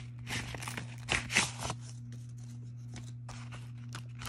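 Taped kraft-paper envelope being handled and opened: paper and tape crinkling and rustling, busiest in the first couple of seconds, then only light scattered ticks of handling. A steady low hum runs underneath.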